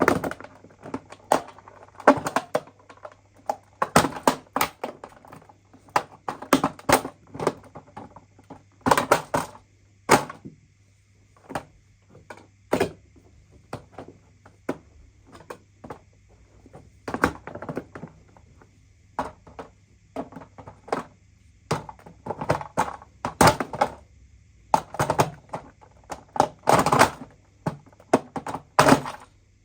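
Irregular knocks, clicks and rattles of hard parts being handled and pulled apart, as when a broken coffee machine is dismantled by hand, some in quick clusters, over a steady low hum.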